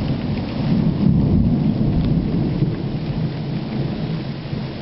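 Rolling thunder, a low rumble that swells about a second in and then slowly dies away, over steady rain.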